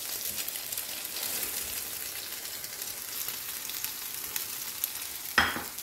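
Egg-dipped bread slices (French toast) frying in oil on a flat griddle pan, a steady crackling sizzle. A single sharp knock sounds near the end.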